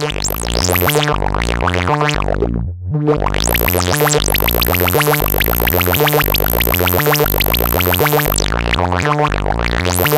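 Make Noise QMMG (Quad Multimode Gate) in a eurorack modular synthesizer, patched as a multi-tap filter network, filtering a fast pulsing synth sequence. Resonant filter sweeps rise and fall over the notes. The sound drops out briefly nearly three seconds in.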